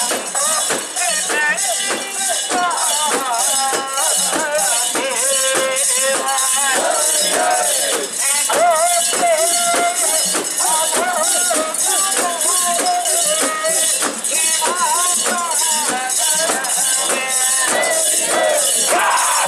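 A steady metallic jingling about twice a second, typical of a carried mikoshi's metal rings and fittings swaying with the bearers' steps, with wavering festival music over it.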